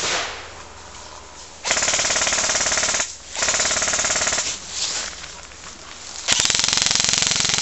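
Airsoft assault rifle firing three full-auto bursts of a second or so each, a fast even rattle of shots with short pauses between.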